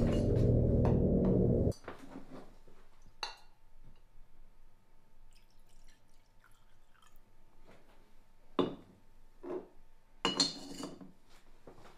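Low background music cuts off suddenly a couple of seconds in. Then a crystal decanter's glass stopper clinks and liquor is poured into a cut-glass tumbler. A cluster of glass-on-glass clinks comes near the end.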